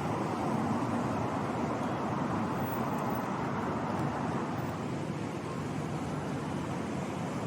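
Steady urban street ambience dominated by a continuous hum of road traffic.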